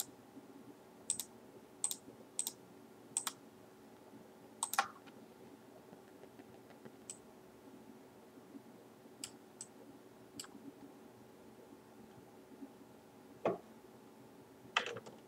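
Faint computer mouse clicks, about a dozen short clicks at irregular intervals, over a low steady hum.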